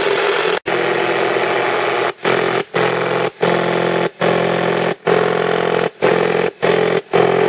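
Shortwave radio interference from the speaker of a DX-390 portable receiver: a loud, hissy, engine-like buzz. As the set is tuned up through the 6.9 MHz band, the sound cuts out for a moment about once or twice a second.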